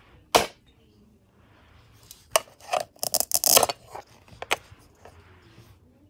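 Hard plastic toy pieces being handled: a sharp click, then a quick run of clacks and a short rasp about two to three and a half seconds in, with another click or two near the end.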